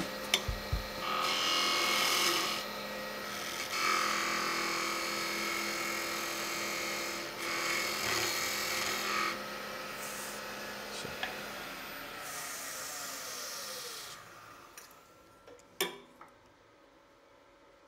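Wood lathe spinning a beech spindle while a chisel cuts the tenon down in several scraping cuts. Near the end the lathe's whine falls in pitch as it spins down and stops, followed by a few light clicks.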